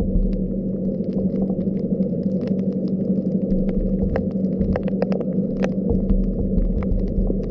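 Muffled underwater sound heard through a camera housing: a steady low hum and rumble, with many irregular short sharp clicks.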